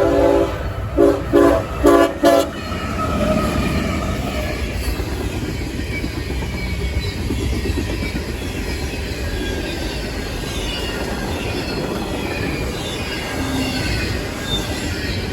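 Diesel locomotive horn finishing a long blast, then three short blasts in quick succession as a horn salute. The intermodal train then runs past, with a faint high squeal of wheels on the rail.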